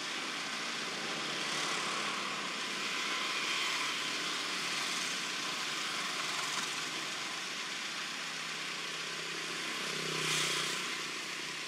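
Steady outdoor background hiss with no distinct event. It swells and fades gently a few times, most noticeably about ten seconds in.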